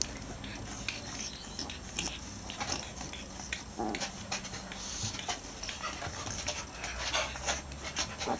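Two French bulldog puppies play-wrestling: irregular scuffling and rustling on a shag rug, mixed with short puppy grunts and breathing noises.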